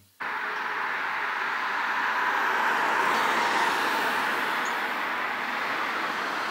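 Steady outdoor street ambience: a constant rushing noise that starts suddenly and holds an even level throughout.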